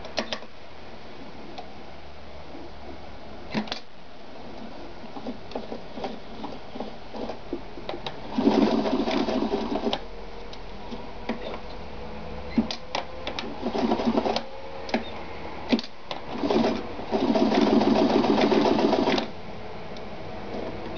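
Ideal 730 sewing machine stitching leather in four short runs, the longest about two seconds near the end. Sharp clicks and knocks from handling the machine and the work fall between the runs.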